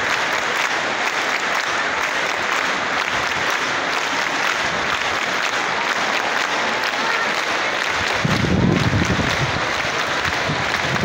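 A large stadium crowd applauding steadily, a dense wash of clapping from thousands of hands. About eight seconds in, a louder, deeper sound close to the microphone lasts for about a second.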